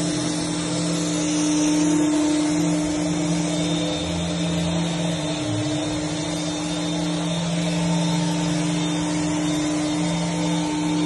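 Paint sprayer running with a steady motor hum. A bright spray hiss fades about two seconds in while the hum carries on.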